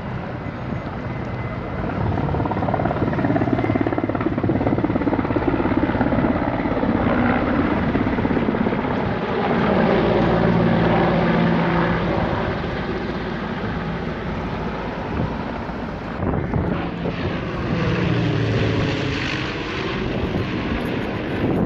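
Helicopter flying over, its rotor and engine sound swelling and fading as it passes, with a sweeping change in pitch near the end.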